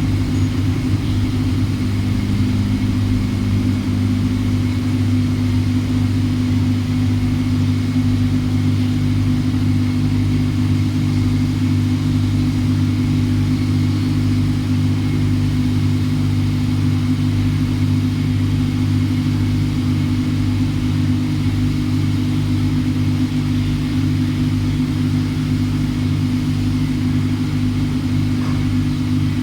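CNC machine running steadily: a constant low mechanical hum with a faint high whine above it, and one of the low tones drops out about four seconds in.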